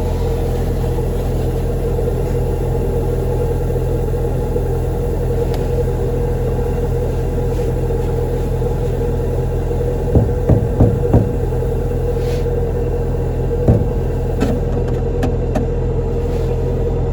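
Kubota DC-93 combine harvester's diesel engine running steadily with a constant drone. About ten seconds in there is a quick run of four knocks, and another single knock a few seconds later.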